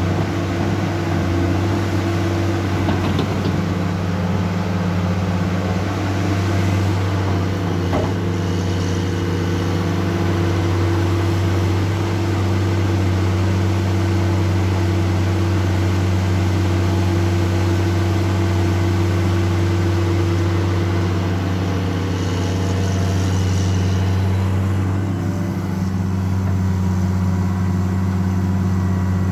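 Caterpillar 336D L ME hydraulic excavator's diesel engine running steadily with a deep, even drone as the machine works, swinging and moving its boom.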